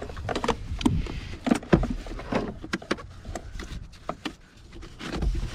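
Hand-work on a car's battery compartment: an irregular run of clicks, knocks and rattles from parts being handled, with a couple of low thumps.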